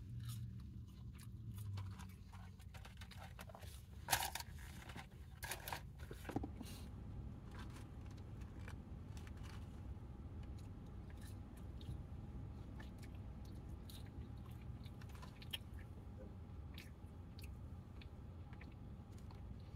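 Close-up chewing and crunching of McDonald's fries, with scattered small clicks and a few louder crackles about four to six seconds in, over a steady low hum.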